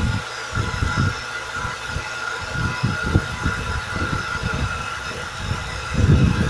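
An air compressor running with a constant whine, while a homemade spray gun blows paint mist in uneven gusts of air.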